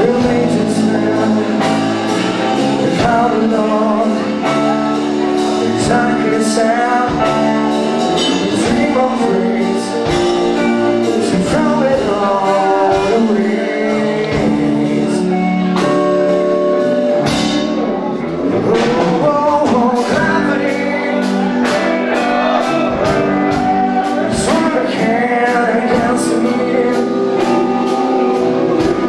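Live rock band playing: two distorted electric guitars, electric bass and a drum kit, with a man singing over them.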